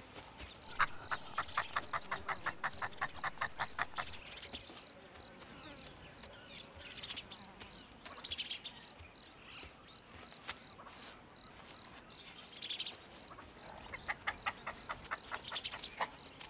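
Insects chirping: a high, evenly pulsed chirp runs throughout, with a faster run of clicking pulses for the first few seconds and again near the end.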